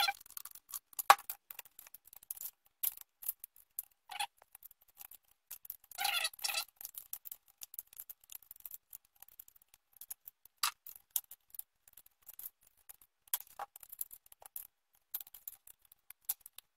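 Hand tool turning the long mounting screw of a Magpul shotgun stock, giving irregular metallic clicks and scrapes as it is tightened down.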